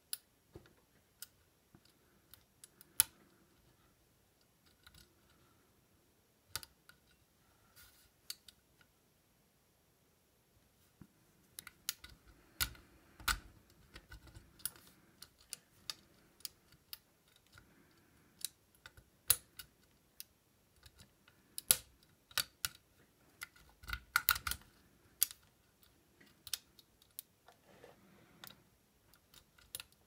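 A lock pick and tension wrench working the pins of an old Eagle mailbox lock: irregular sharp metallic clicks with light scraping between them, a short lull about ten seconds in, then busier picking.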